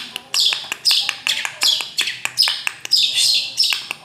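Long-tailed shrike (cendet) singing a fast, chattering song of short, harsh notes that drop in pitch, several a second, with sharp clicks between them.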